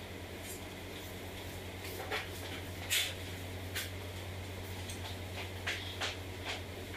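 A few scattered sharp clicks and knocks of plastic car-bumper parts being handled and fitted, the loudest about three seconds in, over a steady low hum.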